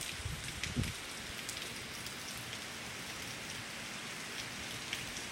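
Heavy rain falling steadily, with many separate drops ticking on nearby surfaces. There are a couple of low thumps in the first second.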